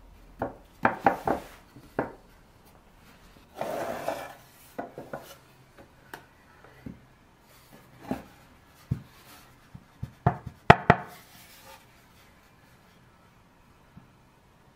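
Small birch dovetail chest being handled on a wooden workbench: scattered light wooden knocks and clicks, a short scraping rub about four seconds in, and a quick run of sharp knocks a little past ten seconds.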